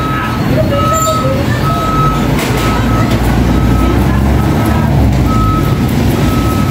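Short electronic beeps at a steady pitch, repeating about once a second, over a low, steady engine rumble.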